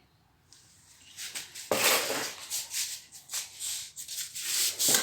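Hard plastic parts rattling, clicking and scraping as a car turn-signal lamp housing and its retaining clips are handled and fitted. Irregular and noisy, starting about a second and a half in.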